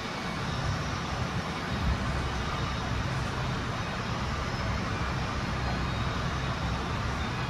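Steady background rumble and hiss of workshop noise, with no distinct event standing out.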